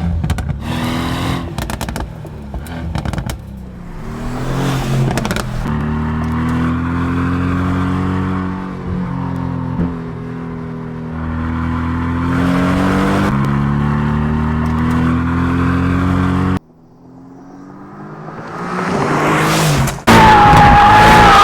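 Mercedes-AMG GT R's twin-turbo V8 running hard on track, its pitch rising and falling with throttle and gear changes. After an abrupt cut, the engine sound builds again, and near the end a loud, wavering tyre squeal joins it.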